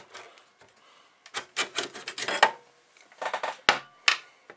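Aluminium hard-drive sleds of a 2009 Mac Pro sliding out of their drive bays: several bursts of metal scraping and rattling clicks, a cluster about a second and a half in and more near the end.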